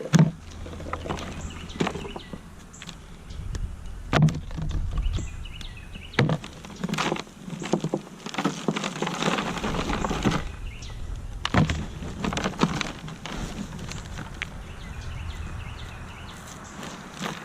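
Hands digging and rummaging through loose potting soil from a dumped grow pot, with rustling and irregular knocks and clicks as soil and small potatoes are handled.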